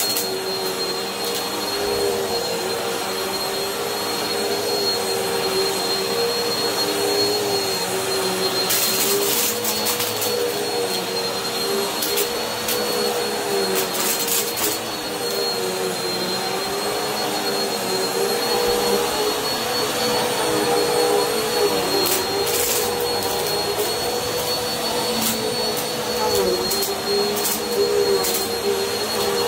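Bissell upright vacuum cleaner running over a rug, a steady motor whine whose pitch wavers slightly as the head is pushed back and forth. A few brief crackles come through, around a third and halfway in and again later.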